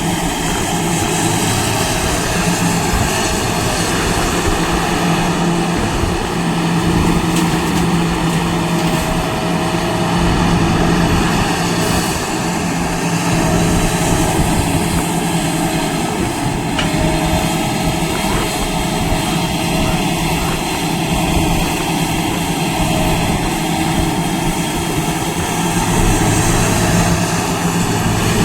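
Heavy earthmoving machine's engine running steadily under work, a continuous engine drone with a held pitch and a slight lift in low rumble near the end.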